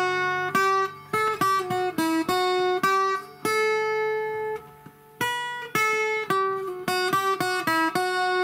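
Octave mandolin, converted from a small acoustic guitar, picked note by note in a melody. Near the middle one note is left ringing for about a second, the playing pauses briefly, then the picking starts again. The strings are freshly strung and the instrument is not yet set up.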